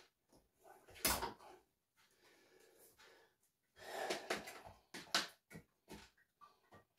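Kitchen handling noises as another bottle of cooking oil is fetched and opened: a sharp knock about a second in, a rustling clatter around four seconds in, then a quick run of light clicks.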